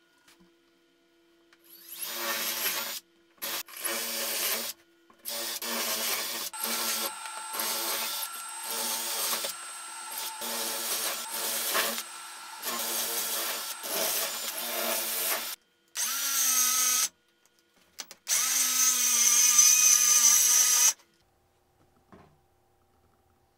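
Drill boring a row of holes through a plywood base plate with a Forstner-style bit, in about ten short bursts with brief pauses between them, one per hole. Near the end come two longer runs of a different, higher-pitched motor.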